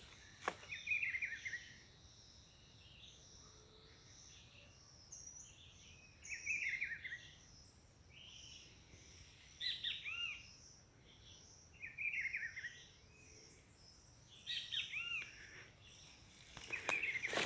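A wild songbird calling in short chirping phrases, repeated every two or three seconds, with a fainter high trill of other birds or insects behind it.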